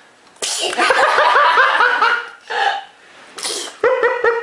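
A child's sneeze, sudden and loud, about half a second in, followed by a long run of laughter in quick pulses. Near the end a second short sneeze-like burst comes, and more laughter follows it.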